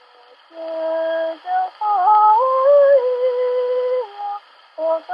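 A woman singing a slow solo melody in long held notes, with no other instrument heard and a faint hiss in the gaps. The singing starts about half a second in and breaks off briefly near the end.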